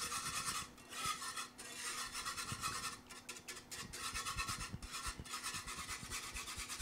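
Metal wire whisk scraping and swishing against the bottom of a cast iron skillet as two eggs are whisked in it: a fast, continuous rasping scrape with a few short breaks.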